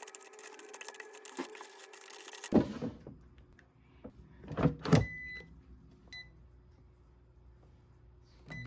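Rapid light clicks over a steady hum, then three loud knocks or thuds, followed by a few short, high electronic beeps.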